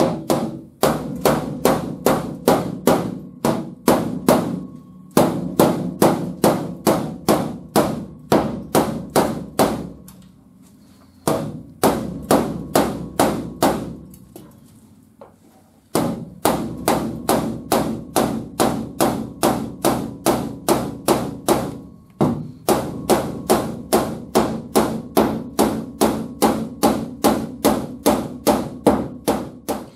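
Body hammer tapping down the seam of a glued-on sheet-metal wheel-arch patch panel. Steady strikes come about three a second, each with a short metallic ring, in runs with a couple of short pauses.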